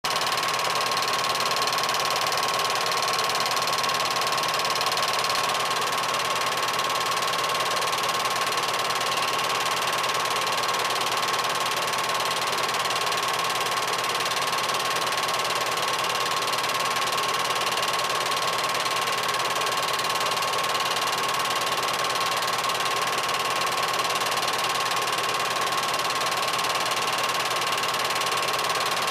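8mm film projector running: a steady mechanical whirr of the motor and film transport, with a constant high whine over an even hiss.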